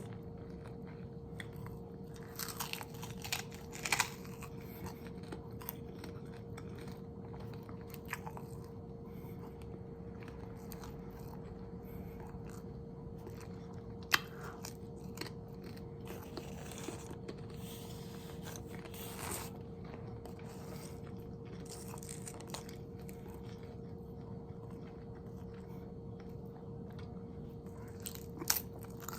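Close-miked eating: crunchy bites and chewing that come in scattered bursts, with quieter stretches between.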